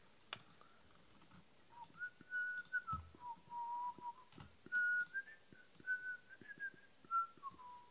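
A person whistling a short tune, a single clear note stepping up and down between a few pitches, starting about two seconds in. Faint clicks and taps sound underneath.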